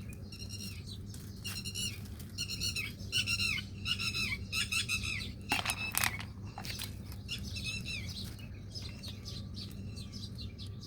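Several birds chirping in a quick run of short, falling calls, busiest and loudest in the middle, with a few sharper, louder calls about six seconds in. A steady low hum runs underneath.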